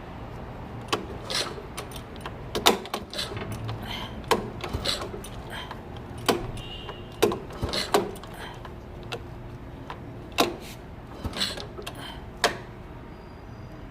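Irregular sharp metallic clicks and knocks, about a dozen, from metal parts or tools being handled, over a steady low hum.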